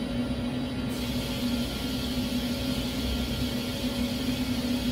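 Steady hum of running shop machinery: a constant low tone over an even rumble, with no change.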